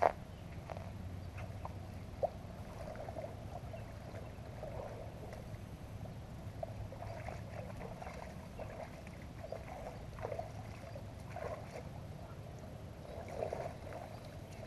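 Shallow lake water splashing and sloshing in irregular bursts as a person wades in and releases a carp by hand, with a sharp click about two seconds in.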